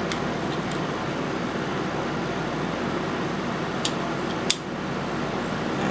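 A few light clicks of a key being worked in a mortise lock, the sharpest about four and a half seconds in, over a steady fan-like hiss.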